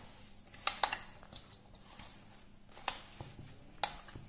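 Hands kneading crumbly naan khatai dough in a stainless steel bowl: quiet rubbing and pressing, with a few sharp clinks against the metal bowl, two close together about a second in and two more near the end.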